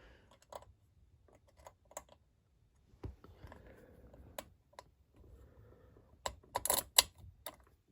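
Light, irregular clicks and taps of small hard objects being handled, with a quick, louder run of clicks about six to seven seconds in.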